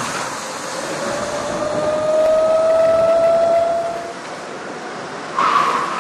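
Electric motor of a Sodi STX electric race kart whining, its pitch rising steadily as the kart accelerates, then fading about four seconds in. A louder, higher squeal cuts in near the end.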